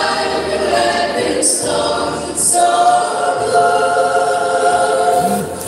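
A choir of women, a group of nuns, singing together into microphones. After two short breaks in the first half, they hold one long note through most of the second half.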